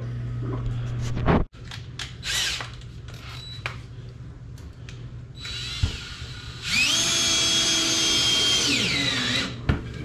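Cordless drill spinning up, running steadily with a high whine for about two and a half seconds, then winding down, as it drives a screw into a wooden block. A few light handling clicks come before it.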